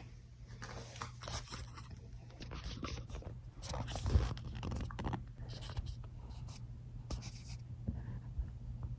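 Irregular light scraping and rustling from hands moving materials or handling the phone, with a few sharper clicks, over a steady low hum.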